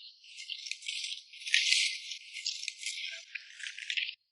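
Dense, irregular rattling and rustling clicks as wild oil-tea tree branches and their small fruits are handled and picked by hand.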